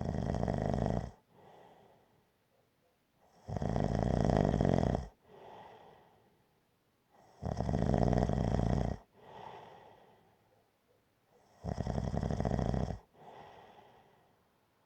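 Gentle snoring, with a steady rhythm of four loud snores about four seconds apart. Each snore is followed by a softer, shorter breath out.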